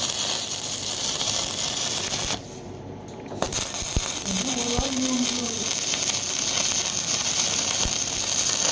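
Electric arc welding: a steady crackling hiss that stops for about a second roughly two and a half seconds in, then strikes up again.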